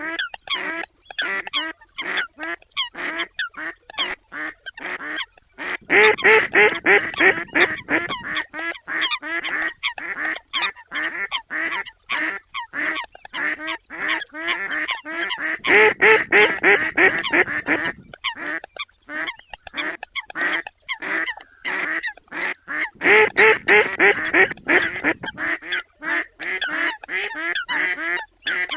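Eurasian coots and mallards calling: a rapid run of short, nasal, honking calls and quacks. Three louder, busier passages begin about six, sixteen and twenty-three seconds in.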